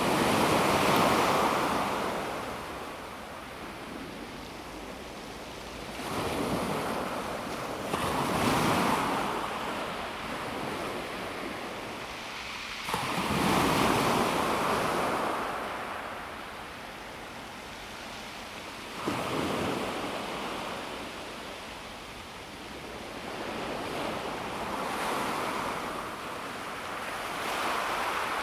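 Small sea waves breaking on a pebble beach, each wave swelling in and fading away, arriving every five or six seconds.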